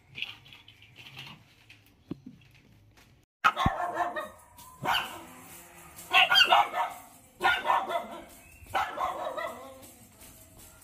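Lhasa apso dogs barking in a kennel. A few faint yips come first, then, after a short break, repeated loud bursts of barking about a second apart.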